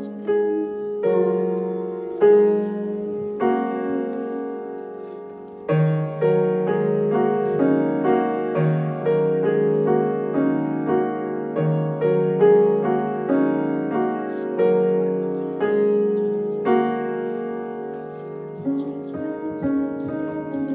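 A child playing a grand piano: a few chords struck and left to ring for the first seconds, then from about six seconds a steadier flow of notes over lower held notes.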